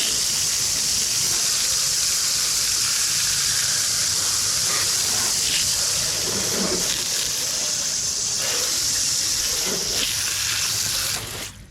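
Garden hose spraying water onto a lawn mower to rinse off degreaser and grease: a steady, loud hiss of spray that cuts off suddenly near the end.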